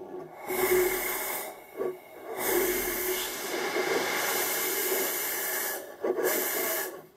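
Homemade ethanol and gaseous-oxygen rocket engine hissing in three spurts: a short one, a long one of about three seconds, then a brief last one. It gives only a weak, fluctuating thrust.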